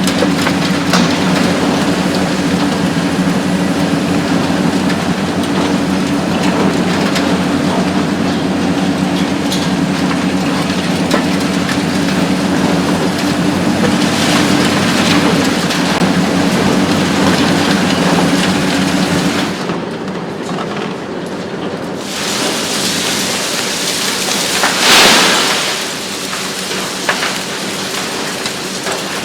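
Hitachi ZX 870-3 XXL long-front demolition excavator working with its hydraulic demolition shear: a steady diesel engine drone under the constant rumble and crackle of breaking concrete and falling debris. The engine drone eases off about 20 seconds in, and a loud crash of falling material follows about 25 seconds in.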